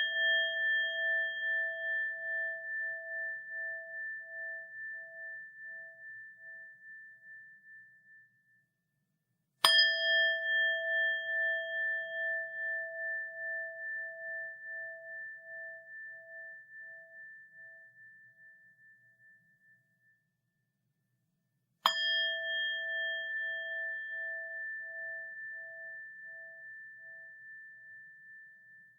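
A small bell (鈴) ringing: still sounding from a strike just before, then struck again about ten seconds in and again about twenty-two seconds in. Each strike leaves a few clear tones that fade slowly with a pulsing waver.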